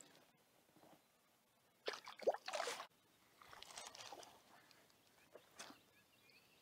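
Faint sounds of fishing from a kayak: the spinning rod cast out with a short swishing burst about two seconds in, a softer stretch of sound as the lure lands and the line is worked, and a small tick near the end.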